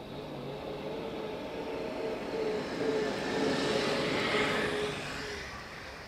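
UAZ-452 van driving past on a frozen dirt track: its engine and tyre noise grow louder, peak about four seconds in, then fade as it moves away.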